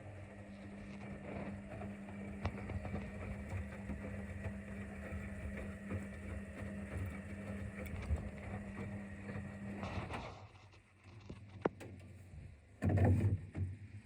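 Zanussi FL984CN front-loading washing machine running a wash cycle: a steady motor hum with the drum turning, which stops about ten seconds in. Two short, loud, low thuds follow near the end.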